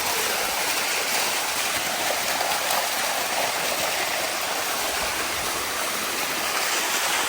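Waterfall water rushing steadily: a constant, even hiss with no breaks.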